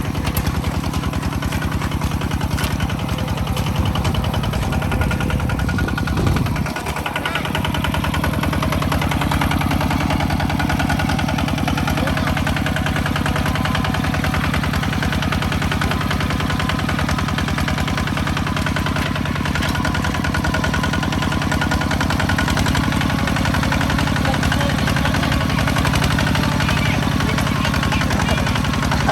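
Engine of a farm machine running steadily with a fast, even pulse, during rice harvesting. The low rumble dips briefly about six to seven seconds in, then steadies again.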